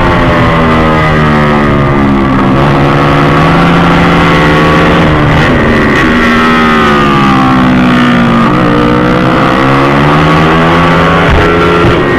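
Honda Beat scooter's small single-cylinder engine heard from on board under hard throttle, its pitch dipping as the throttle is eased into each corner and climbing again on the exit, about four times, over a rush of wind.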